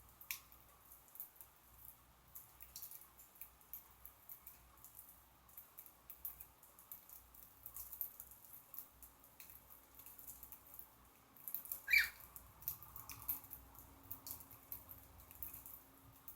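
Pet birds husking millet seeds: many small, irregular clicks and crackles of seed hulls being cracked, with one louder short sound about twelve seconds in.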